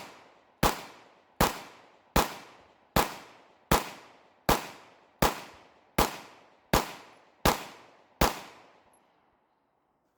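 Glock 19 Gen 5 9mm pistol firing 115-grain round-nose remanufactured ammunition in steady slow fire: eleven shots about three-quarters of a second apart, each with a short echoing tail, the string ending about eight seconds in.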